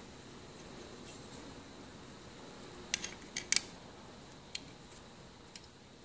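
Sharp metallic clicks from a spring-loaded jumper cable clamp being handled as the cable's terminal lug is fitted into its jaw. Three come close together about halfway through, then one more about a second later.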